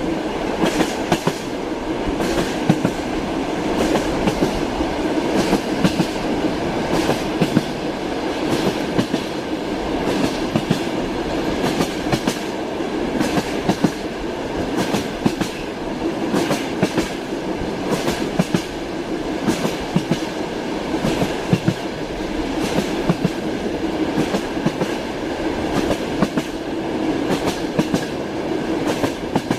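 Train wheels rolling along the track: a steady rumble with repeated clicks as the wheels pass over rail joints.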